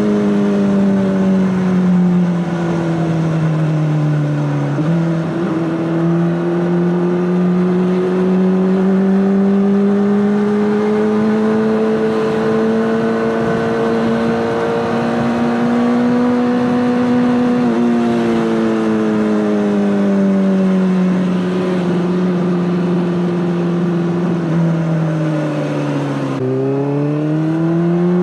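Honda CBR600RR inline-four engine through an Akrapovic exhaust, running steadily under way with its note slowly rising and falling with the throttle. The pitch drops sharply about two-thirds of the way through, sinks gradually, then climbs again near the end.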